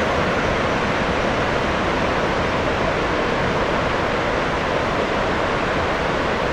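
Steady rush of water pouring through the open spillway gates of the Bonneville Dam, an unbroken noise with no let-up.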